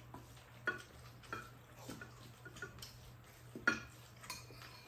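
Spoons scraping and clinking against ceramic rice bowls while stirring and scooping rice, in a handful of separate short clinks, the loudest about three and a half seconds in.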